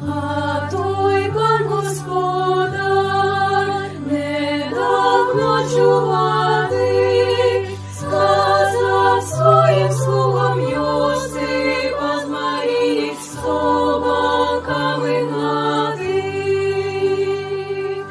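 A small group of girls singing a song together, their voices wavering with vibrato, over an instrumental accompaniment whose long-held bass notes change every second or two.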